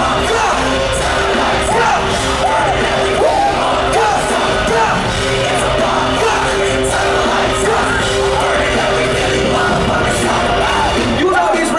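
Live hip hop concert heard from within the crowd: a loud, steady bass-heavy beat with rapped and shouted vocals over it.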